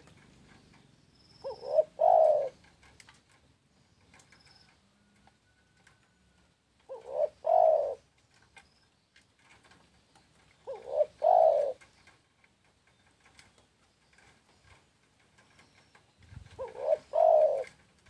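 Spotted dove (tekukur) cooing: four phrases about every four to five seconds. Each is one or two short coos followed by a longer coo.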